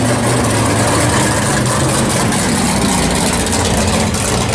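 Pontiac GTO drag car's engine running at low speed as the car rolls slowly past, a loud, steady low rumble.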